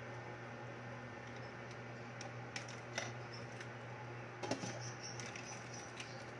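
A ladle clinks a couple of times against a stainless steel pot of simmering soup, then a glass lid is set down on the pot with a clatter about four and a half seconds in, the loudest sound here, all over a steady low hum.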